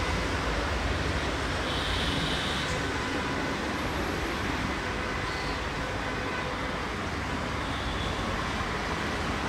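Broad-gauge passenger train rolling away along the track: a steady low rumble that eases slightly after a few seconds, mixed with the general hum of city traffic.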